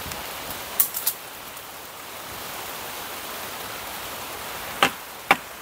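Steady rain falling, an even hiss, with a few short sharp clicks about a second in and again near the end.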